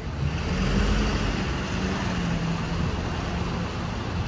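Street traffic with a motor vehicle passing close by: its engine hum rises in pitch early on, holds steady, then fades, and is loudest about a second in.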